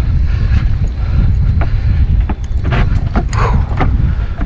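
Wind buffeting the microphone as a steady low rumble, with a handful of short clicks and knocks between about two and four seconds in.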